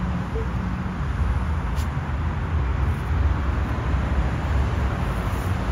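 Steady road traffic noise, a low rumble with no single event standing out.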